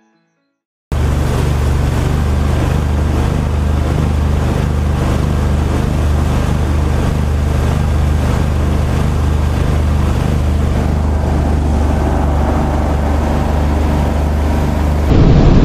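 Motor of a 17-foot aluminium flat-bottom boat running steadily at planing speed, with wind and water rushing past. It cuts in abruptly about a second in after a moment of silence.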